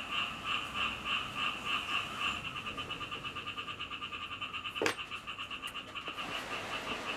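Steady rhythmic animal calling: a repeated two-pitched chirp a few times a second that quickens partway through. About five seconds in comes a single sharp click of metal parts being handled.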